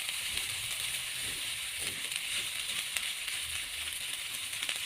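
Leftover rice with onions, tomatoes and egg sizzling in a frying pan: a steady frying hiss with faint scattered clicks.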